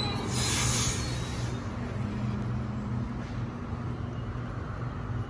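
Sydney Trains Waratah double-deck electric train running past and pulling away: a steady low hum with wheel and rail noise, and a short burst of hiss about half a second in.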